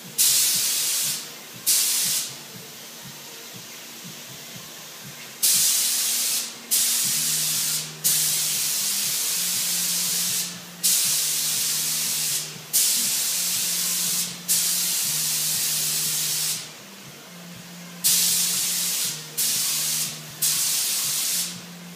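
Detail touch-up spray gun with a 1.0 mm tip spraying paint in short trigger pulls: about eleven bursts of hiss, each starting sharply and lasting half a second to two seconds. A low hum runs underneath.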